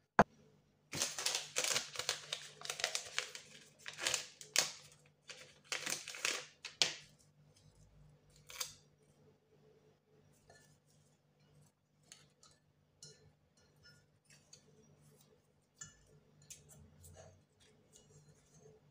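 A sharp click, then several seconds of paper packaging rustling and crinkling in quick bursts as a tea bag is unwrapped; after that only faint light taps and handling sounds.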